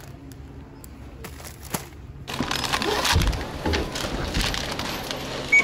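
Groceries and packaging being handled, rustling and crinkling, with a couple of dull knocks, louder from about two seconds in. A single short electronic beep near the end.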